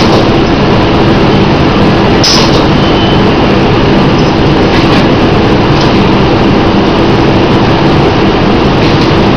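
Semi-automatic animal feed bagging machine and its surrounding plant running loudly and steadily with a constant hum, with a short hiss about two seconds in.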